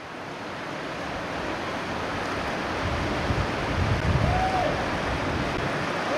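Wind rushing and buffeting the microphone over open water, growing steadily louder, with low rumbling gusts about four seconds in. A faint short call rises and falls near the same moment.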